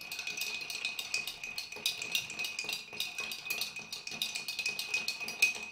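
Ice cubes clinking against a glass mixing glass as a long metal bar spoon stirs them round: a steady run of quick, light clinks.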